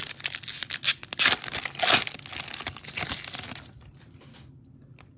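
Foil wrapper of a Panini Mosaic football card pack being torn open and crinkled, a dense crackle lasting about three and a half seconds, then only a couple of light clicks.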